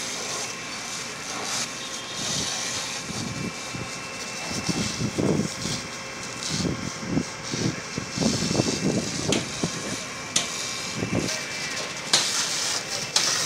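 Bystanders' voices talking over a steady hiss, with a few sharp clicks, the loudest near the end.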